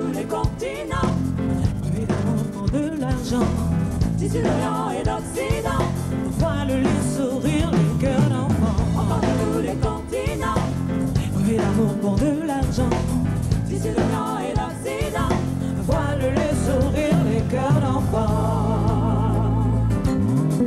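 A live band plays, with women singing over drum kit, bass guitar and keyboards.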